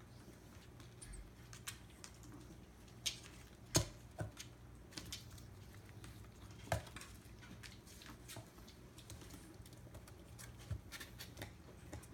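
Kittens' paws and claws tapping and scrabbling on a cardboard box and hardwood floor as they play-fight, in scattered light taps with sharper knocks about four and seven seconds in.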